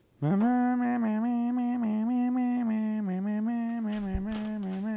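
A single voice holding one long sung note, sliding up into it at the start and wavering slightly in pitch throughout.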